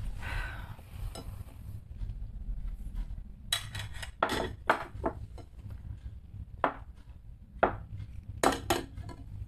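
Plates being shuffled around and set down on a table, with a series of sharp clinks and knocks that start about a third of the way in and recur irregularly to near the end.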